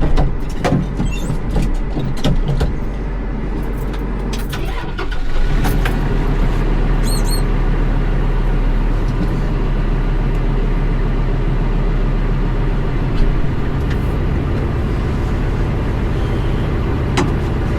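Kubota tractor's diesel engine running under way, with knocks and rattles over the first five seconds before it settles into a steady, heavier drone.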